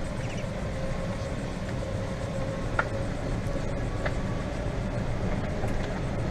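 Golf cart driving along, a steady low rumble of its motor and tyres with a faint whine, and two short ticks about three and four seconds in.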